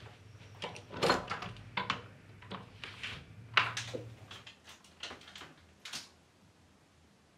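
Sharp knocks and clinks of kitchen objects being handled, such as a fork against a dish, the loudest about a second in and about three and a half seconds in. The sounds die away after about six seconds.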